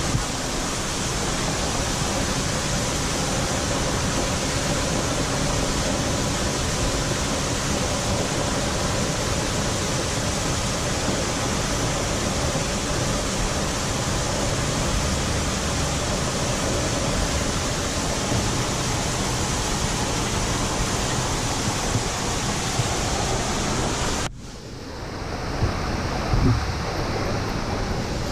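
Steady, loud rush of a waterfall close by. Near the end it cuts abruptly to a quieter rush, with a couple of short knocks.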